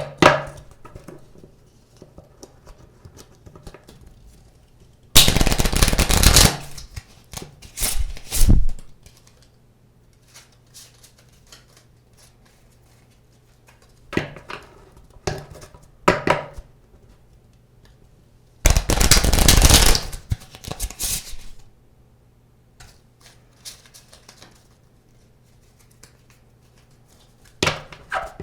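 A deck of playing cards being shuffled over and over: two long runs of rapid card flicking about five and nineteen seconds in, shorter flurries of flicks and taps in between, and faint ticking of cards being handled in the pauses.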